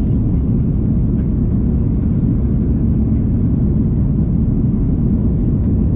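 Steady low rumble of an Airbus A330-200 in flight, engine and airflow noise heard from inside the passenger cabin.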